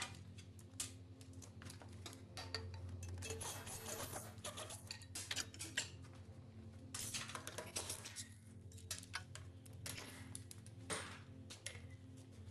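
Metal tools and engine parts clinking and clattering in irregular bursts during hands-on diesel engine disassembly, over a low steady drone.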